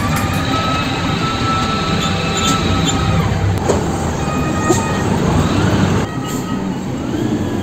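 Heavy diesel vehicles running in a container yard: a dense low rumble with high metallic squeals and whines over it. The sound changes abruptly about six seconds in.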